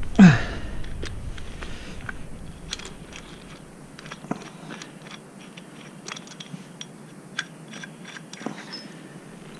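A short falling vocal exclamation at the start, then scattered light clicks and taps of small mounting hardware, washers and screws, being handled and fitted.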